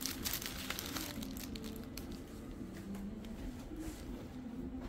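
Rustling of cloth and crinkling of clear plastic wrapping as embroidered kurtis are handled and unfolded, busiest in the first second, then scattered soft rustles.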